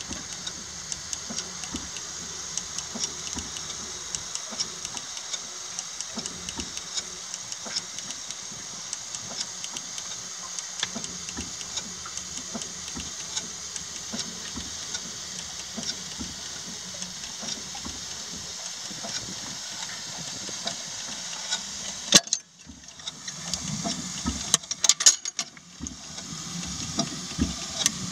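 A 6-inch scale Samson miniature steam traction engine ticking over slowly: a steady hiss of steam with light, irregular ticks from the engine. About 22 seconds in there is a sharp click, a short lull, then a few more clicks and rustles.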